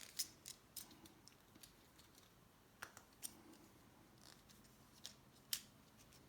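Faint, irregular sharp clicks and ticks of a small knife and plastic parts being handled on a work surface; the loudest come near the start, about three seconds in and near the end.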